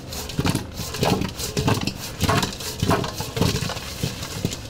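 Whole oiled potatoes tumbling and rolling around a large stainless steel mixing bowl as it is swirled to toss them, a rumbling roll that swells about every half second.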